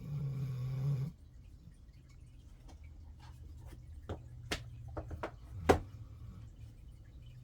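A sleeping pet snoring once, a single droning snore about a second long. Several sharp clicks or taps follow a few seconds later, the loudest near the end of them.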